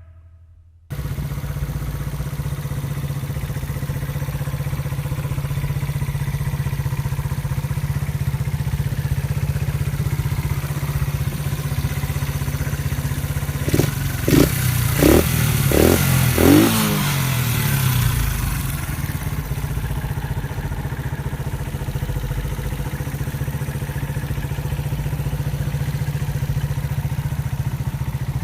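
SYM Wolf 125 Classic's single-cylinder four-stroke engine idling steadily. About halfway through it is blipped four times in quick succession, each rev rising and falling, then it settles back to idle.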